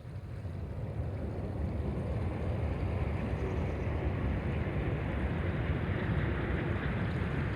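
Rushing river water with wind buffeting the microphone, the rumble and hiss swelling over the first couple of seconds as a gust picks up, then holding.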